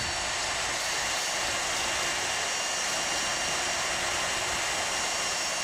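Electric drill spinning a small sanding disc against thin steel sheet, sanding rust and mill scale off the edge to prepare it for TIG welding. A steady whirring hiss with a thin, high motor whine, unchanging throughout.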